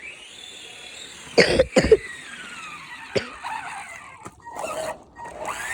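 Electric motor of an RC car whining, its pitch rising and falling as the car is driven, with two loud short bursts about one and a half seconds in and a sharp click a little after three seconds.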